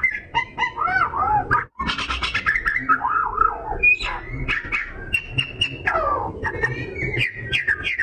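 Oriental magpie-robin singing in full voice: a fast, varied string of sweet whistles, rising and falling phrases and sharp clicky notes, with a long falling slide about six seconds in and a brief break just before two seconds in.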